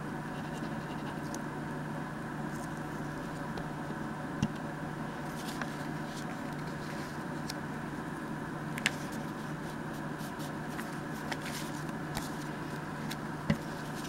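Steady background hum, with a few faint taps and rustles of paper being pressed down and handled by hand.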